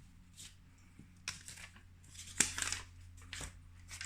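Post-it note masks being peeled off inked card stock: several short papery rips and rustles, the longest about two and a half seconds in.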